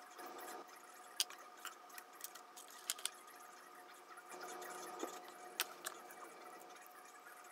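Sparse light clicks and taps from small parts being handled while a cabinet is put together, with soft rustling in between and a faint steady hum underneath.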